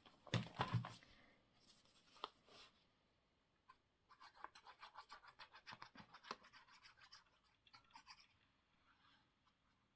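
Faint paper handling: a few soft knocks, then a quick run of scratchy back-and-forth rubbing over paper, about six strokes a second, as a piece is glued and pressed down.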